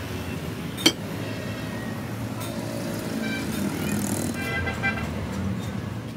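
Steady rumble of road traffic, with a single sharp metallic click about a second in.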